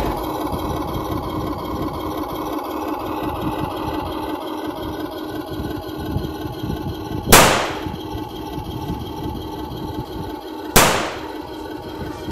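A steady engine-like hum, broken twice in the second half by sharp, loud gunshot-like bangs about three and a half seconds apart.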